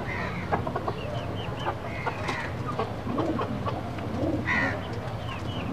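Chickens clucking, with short high chirps and lower calls scattered throughout, over a steady low hum.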